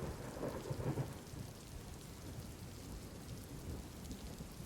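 Steady rain with a low rumble of thunder, the rumble strongest in the first second and then settling under an even hiss of rainfall.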